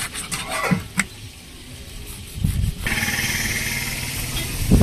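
A couple of sharp knocks of a large knife chopping through fish onto a plastic cutting board, then from about three seconds in the steady running noise of a motor vehicle engine.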